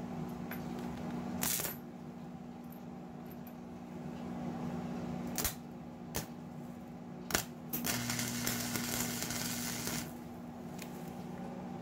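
Wire-feed welder tack-welding the gaps in steel chain links: a brief crackle, a few sharp clicks as the arc strikes, then about two seconds of continuous arc crackle near the end, over a steady low hum.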